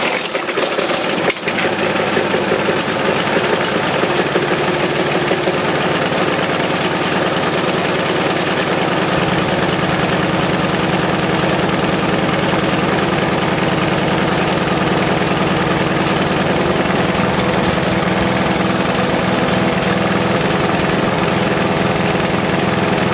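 Briggs & Stratton 35 Classic single-cylinder lawnmower engine catching from a pull-start and then running steadily on a freshly fitted spark plug. The exhaust on it is loose.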